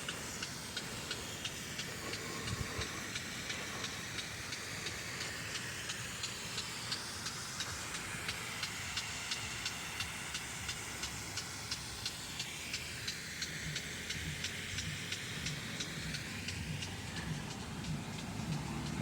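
Impact lawn sprinkler running: a steady spray hiss with rapid, even ticking, several ticks a second.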